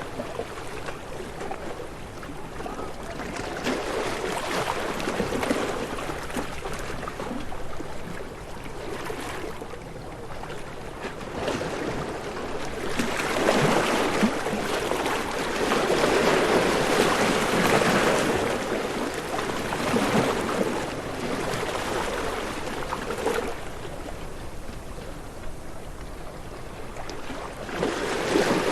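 Ocean waves washing in and receding: a steady rush that swells and falls back over several seconds, loudest about halfway through and again near the end.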